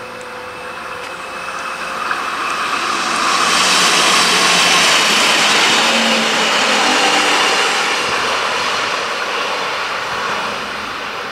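Two-car regional railcar passing close by on the tracks: its running noise swells over the first few seconds, is loudest around the middle, then slowly fades away.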